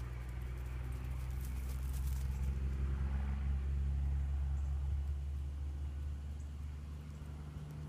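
A steady low hum made of several even tones, with a few faint clicks and crackles about two seconds in.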